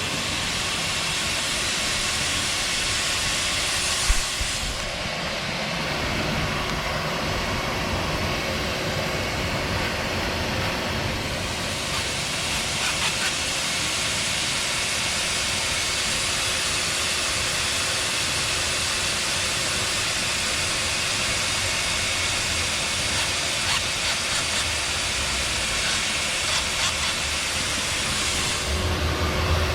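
Shop vac running as a blower, a steady rush of air with a constant motor whine, pushing air into the exhaust system to pressurise it for leak hunting. A sharp click comes about four seconds in, and the hiss loses some of its top end for several seconds before returning.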